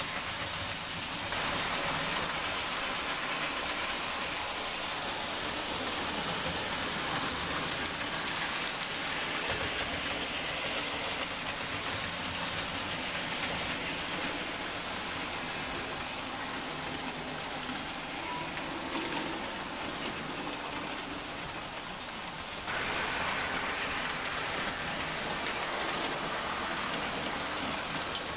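Model trains running round a model railway layout: a steady whirring rumble of locomotive motors and wheels on the track, which gets louder about a second in and again near the end.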